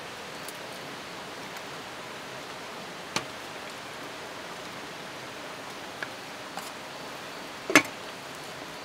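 Light clinks of a ladle against a metal cooking pot and bowl as soup is served, then a louder metal clank near the end as the pot's metal lid is set on. A steady rushing noise lies underneath.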